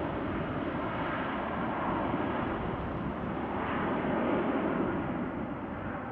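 Airbus A320 airliner's twin turbofan engines at full power as it climbs away after takeoff: a steady jet rumble that slowly fades toward the end.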